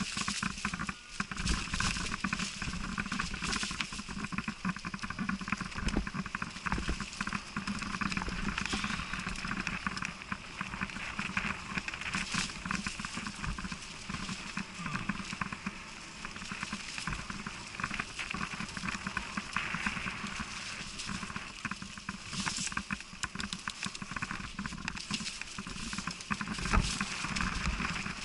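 Mountain bike descending a singletrack covered in dry leaves, heard from a camera on the bike or rider: tyres rolling and crackling over the leaves, with a constant rattle of small clicks and knocks from the bike over the bumps.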